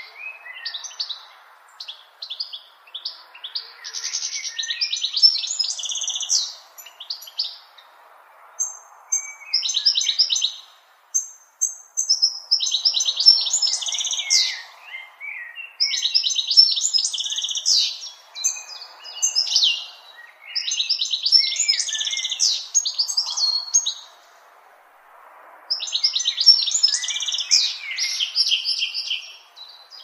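European goldfinch singing: repeated phrases of fast, liquid twittering, each a few seconds long, with short pauses between them.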